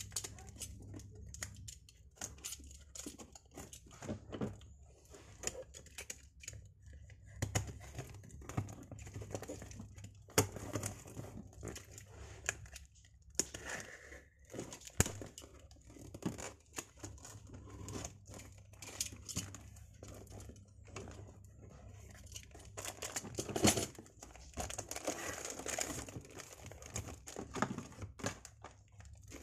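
Cardboard parcel being opened by hand: packing tape scraped and torn away from the cardboard, with irregular clicks, rasps and rustles of cardboard and plastic. A longer, louder stretch of tearing and rustling comes about three-quarters of the way through as the box is opened.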